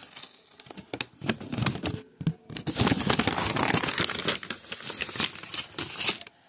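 Paper being crumpled and handled close to the microphone: a dense crackling that starts about a second in, grows louder, and stops suddenly near the end.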